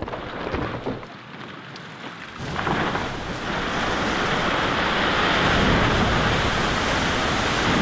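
Glacier calving: the ice face of a tidewater glacier breaks off and falls into the sea. Quieter at first with a few knocks, then about two and a half seconds in a sudden heavy rush of falling ice and splashing water that keeps going steadily.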